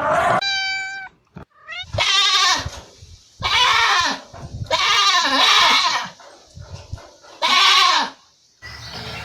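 Goats bleating: four loud, wavering bleats separated by short pauses, with a shorter, steadier pitched call just after the start.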